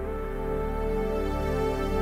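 Background music: soft, slow held chords.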